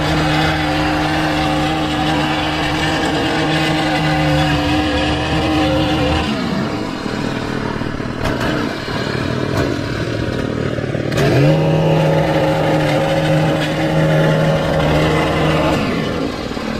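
Small petrol engine of lawn equipment running at high speed, throttled down about six seconds in and revved back up to full speed about eleven seconds in.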